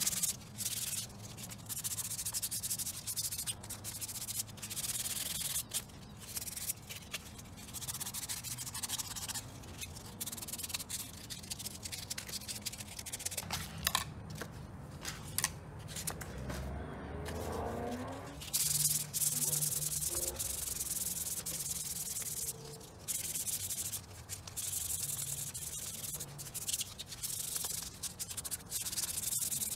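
Carbon fiber shift surround being wet sanded by hand with P400 wet-or-dry sandpaper: a rubbing hiss in many quick back-and-forth strokes. The sanding breaks off for a few seconds about halfway through while the sandpaper is handled, then resumes.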